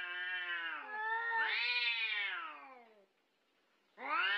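Two domestic cats in a face-off, caterwauling: long, drawn-out yowls that rise and then fall in pitch. One yowl ends about a second in, a second one follows, and after a brief pause a third begins near the end. These are the warning yowls of an aggressive standoff between cats.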